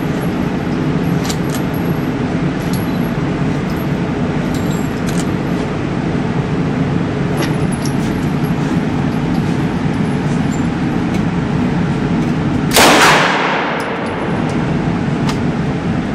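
Steady loud hum of an indoor shooting range's ventilation, with faint sharp gunshot cracks scattered through it. One loud gunshot bangs out about 13 seconds in and echoes off the range walls for about a second.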